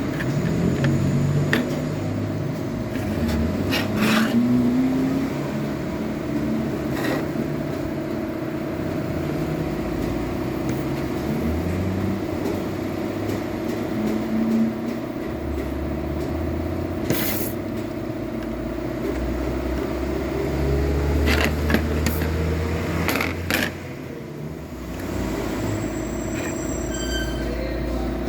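A steady mechanical hum with low rumble underneath, broken by scattered sharp clicks and scrapes of tools being handled.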